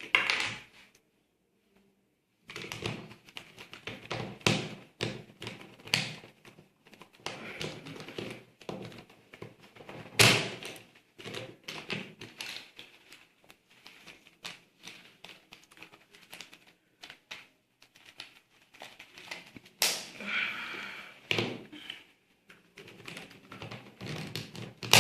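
Plastic 3×3 Rubik's cube pieces clicking and snapping as they are fitted back into the cube by hand: a rapid, irregular run of small clicks and knocks, with a couple of louder sharp snaps about ten and twenty seconds in.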